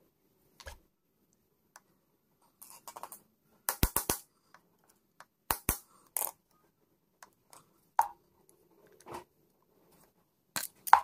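Screwdriver clinking and tapping against the steel shafts and linkages under an old Singer sewing machine's head: irregular sharp metallic clicks, loudest in a quick cluster about four seconds in and again near the end.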